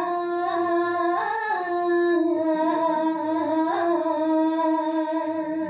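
A woman's voice singing a Balinese geguritan line to a Sinom (pupuh) melody, unaccompanied, holding long drawn-out notes with slow ornamental turns in pitch.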